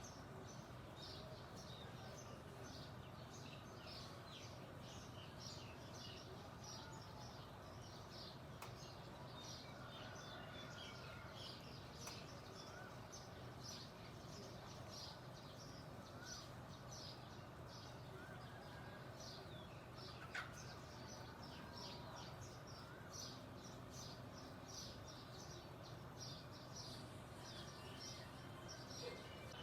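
Many small songbirds chirping continuously in quick, short, high notes over a faint steady low hum, with one sharp click about two-thirds of the way through.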